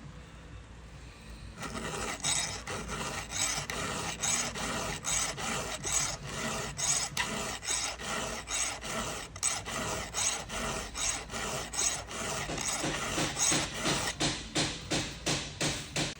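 Chainsaw chain being sharpened by hand with a file: rasping file strokes across the cutters, starting about two seconds in and quickening to about three a second near the end.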